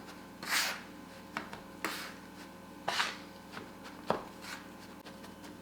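Metal bench scraper scraping and chopping through flour and egg yolk on the work surface, mixing the dough: a few soft scrapes with several short sharp taps in between.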